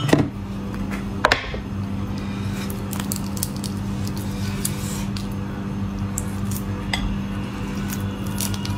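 Fingers peeling the thin shell off a raw soy-marinated prawn: small wet crackles, squishes and clicks, with a louder click about a second in, over a steady low hum.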